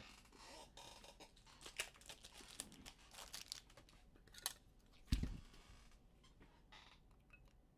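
Faint crinkling and light clicking as trading cards and their packaging are handled, with a dull thump about five seconds in.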